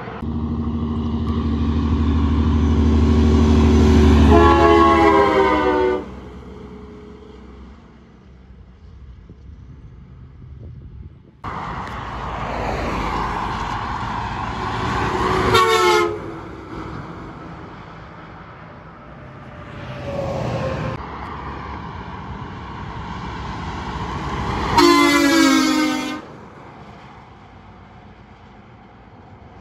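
Passing semi trucks sounding multi-tone air horns over diesel engine and road noise: a long blast about four seconds in, a short one about halfway through, and another long one near the end.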